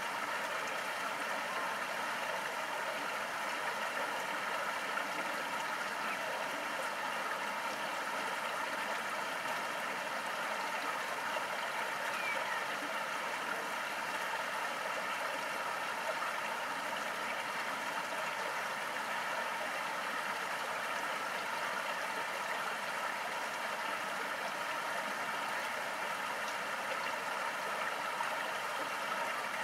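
Steady, even rushing of water, with no distinct lapping sounds standing out.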